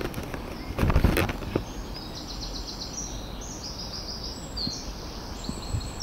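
A bird singing short, rapid trilled phrases that jump between high pitches, one phrase after another, over a steady low rumble. A few knocks of the camera being handled come about a second in.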